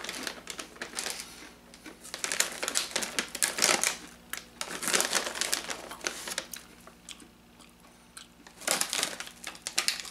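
Dog-treat packaging crinkling and crackling as it is handled, in several bursts, the last shortly before the end.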